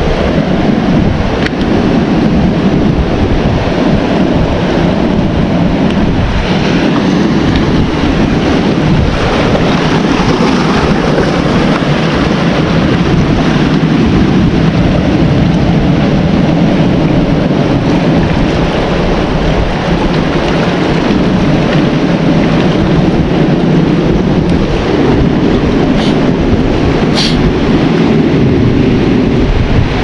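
Sea washing and lapping over a rocky shoreline, with surf breaking farther out, under heavy wind buffeting on the microphone that makes a steady loud rumble.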